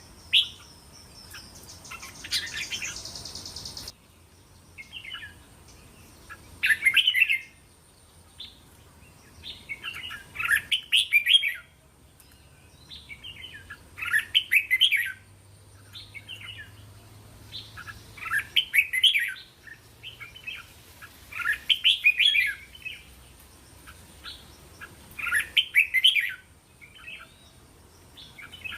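Red-whiskered bulbul singing short, bright warbling phrases of a few notes each, repeated about every three to four seconds.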